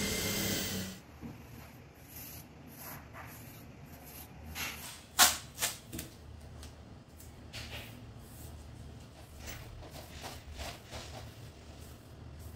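Paintbrush and masking tape being worked on a wall: soft, scattered rubbing and scraping sounds, with a couple of sharp taps about five seconds in.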